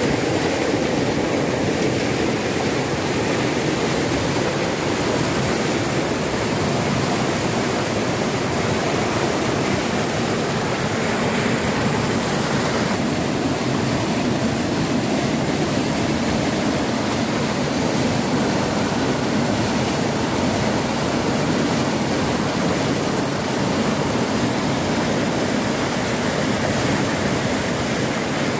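Floodwater rushing in a torrent: a loud, steady, unbroken noise of moving water.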